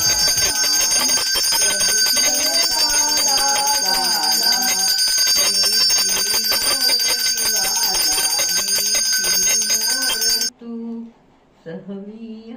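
Small metal puja hand bell (ghanti) rung rapidly and continuously during aarti, over a voice singing. The ringing stops suddenly about ten and a half seconds in, and a voice follows near the end.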